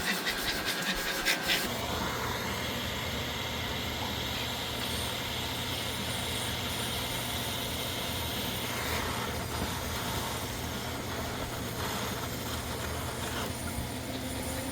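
A steady machine hum with a hissing rush, starting about two seconds in after a few light clicks.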